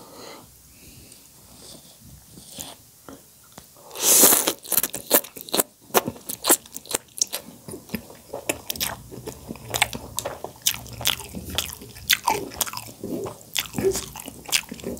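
A person eating soupy instant noodles: a loud slurp about four seconds in, then chewing with a quick run of wet mouth smacks.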